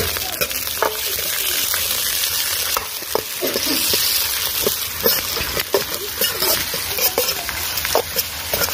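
Chopped garlic, green chillies, ginger, spring onion and curry leaves sizzling in hot oil in a metal wok. A steel ladle scrapes and clinks against the pan in quick strokes as they are stirred.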